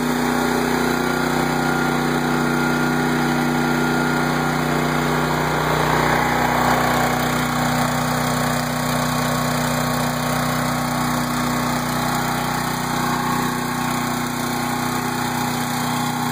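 Champion portable generator's engine running steadily on natural gas through a Motor Snorkel tri-fuel conversion kit. The sound grows fuller in the mids about six seconds in, when it is heard up close.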